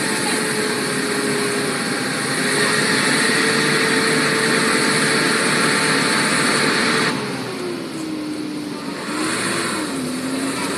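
Mitsubishi Pajero's engine held at high, steady revs over a loud hiss as the stuck SUV tries to pull out of deep mud. About seven seconds in, the revs drop and waver lower and the hiss fades.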